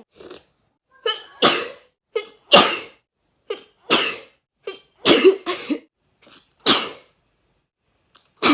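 A person sneezing over and over, set off by sticks pushed into the nose. There are about five forceful sneezes roughly a second apart, with quick in-breaths and smaller catches between them.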